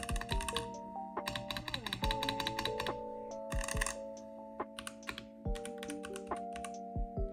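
Typing on a Womier K98 mechanical keyboard, with irregular keystrokes that sometimes come in quick runs. Background music with sustained notes plays under it.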